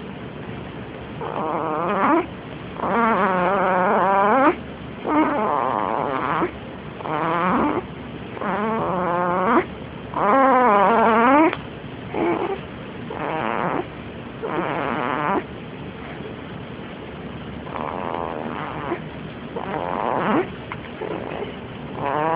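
Snoring: a steady series of loud, pitched snores, each with a clear tone that bends in pitch, coming with each breath about every one and a half to two seconds.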